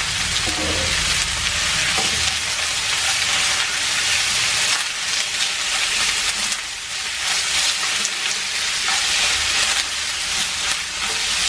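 Sliced sour bamboo shoots sizzling steadily as they stir-fry in hot oil with fried shallots in a non-stick frying pan, tossed and stirred with wooden chopsticks.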